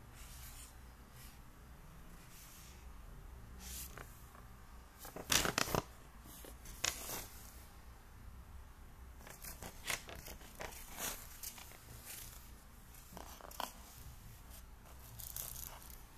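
Paper instruction leaflet rustling and crinkling as it is unfolded and handled, in scattered short bursts, loudest about five seconds in.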